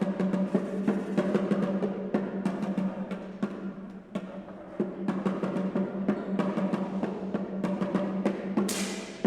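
Background music with drums and percussion: a steady low tone under many quick beats, with a rising swish near the end.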